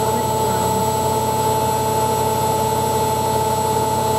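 Hoover Ecologic 1300 washing machine spinning its drum at high speed, a loud, steady motor whine with a constant pitch over the rush of the spinning drum.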